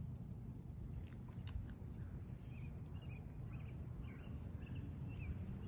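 Faint short bird chirps, repeating from about halfway in, over a steady low outdoor rumble, with a few light clicks a little over a second in.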